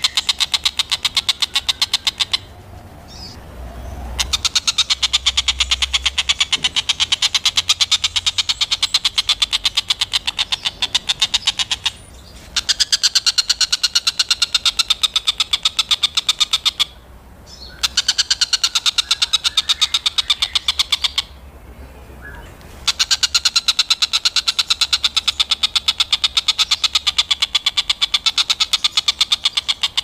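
Oriental dollarbird giving rapid chattering calls of harsh repeated notes, in bouts of several seconds broken by short pauses, with a faint low hum underneath.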